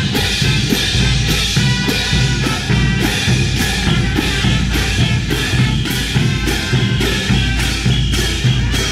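Brass band music for the Morenada dance, with drums and cymbals striking evenly about twice a second.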